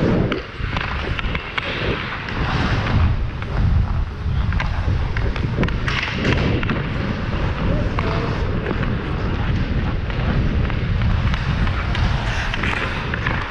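Wind buffeting a GoPro's microphone as the wearer skates, a heavy rumbling rush, with hockey skate blades scraping the ice and scattered sharp clicks.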